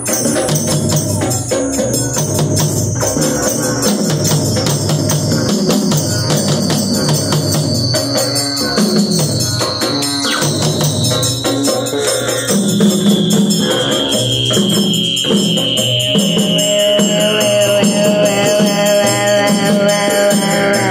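Group hand-drum jam: several hand drums played together in a steady rhythm, with rattling percussion over the drumming. A thin high tone slides slowly down in pitch throughout.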